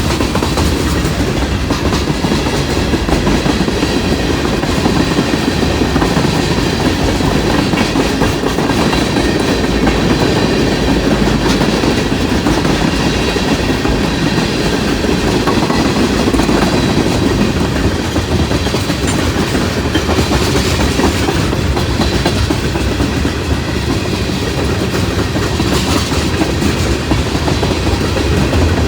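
Freight cars of a long CSX mixed manifest train rolling past, with a steady, loud noise of wheels running on the rails.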